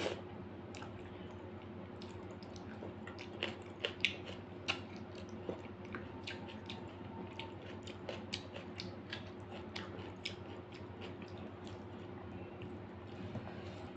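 Close-up eating sounds: wet chewing and mouth clicks while rice and dal are mixed and eaten by hand, a busy scatter of small sharp clicks and squishes. A steady low hum lies underneath.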